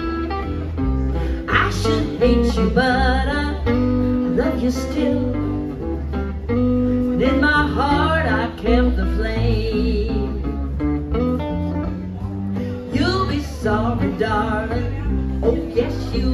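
Live country band playing: electric bass, electric guitar and acoustic guitar over a steady bass line.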